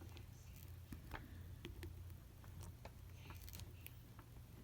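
Faint, scattered clicks of hand wire strippers working insulation off a heavy number 6 copper wire, a strip that goes tough, over a low steady hum.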